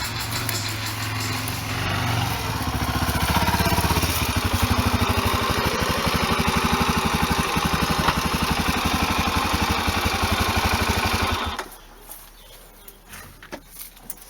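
Motorcycle engine running at a steady idle with an even pulsing beat, then switched off about three-quarters of the way through and stopping abruptly, leaving a few faint clicks.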